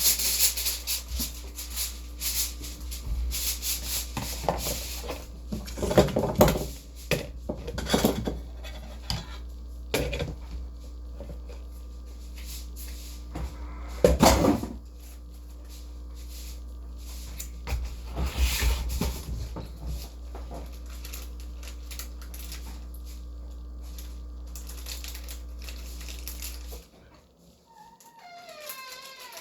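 Kitchen handling noise: irregular knocks, bumps and clatter of dishes and doors over a steady low hum that cuts off near the end, followed by a short whine falling in pitch.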